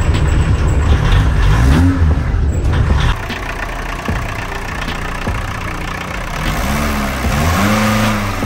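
VW Caddy Mk1's 1.6-litre four-cylinder diesel engine running on its newly fitted standard exhaust, the throttle worked by hand at the injection pump so the revs rise and fall. The sound is louder and deeper for the first three seconds, then quieter, with a few rev blips near the end.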